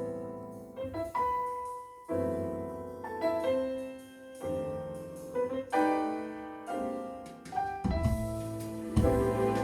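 Recorded music played through B&W DM2a hi-fi loudspeakers: a slow piano introduction of separate chords, each ringing and fading. Bass and fuller accompaniment come in near the end.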